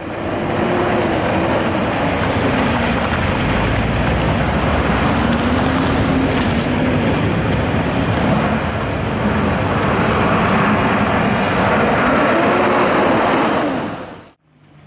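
Street traffic at a busy intersection: car, truck and bus engines running as vehicles pass close by. Their engine notes rise and fall over a steady rush of road noise. The sound cuts off shortly before the end.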